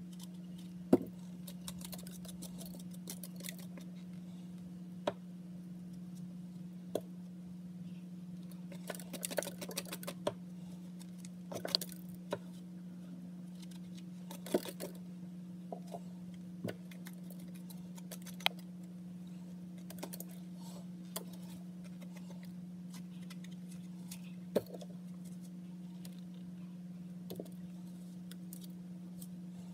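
A kitchen knife and fingers scraping and knocking the seeds out of peeled eggplant pieces: scattered sharp clicks and short scraping rustles, the sharpest about a second in, over a steady low hum.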